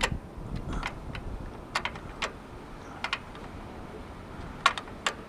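Irregular sharp metal clicks and taps of a hand wrench working on the oil drain fitting under a riding mower's engine, a dozen or so spread out, the two loudest near the end.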